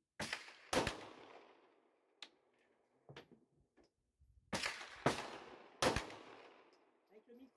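9mm Luger pistol shots, firing Scorpio (STV Group) ammunition. Two shots half a second apart near the start, a few fainter cracks in the middle, then three shots in quick succession about halfway through, each with a fading echo tail.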